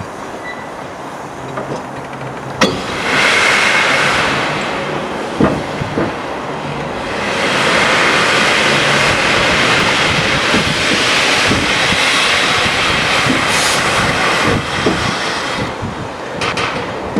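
Peppercorn A1 steam locomotive Tornado releasing steam: a sharp clank, then a loud hiss for about two seconds. The hiss starts again a few seconds later and carries on for most of the rest, with scattered knocks.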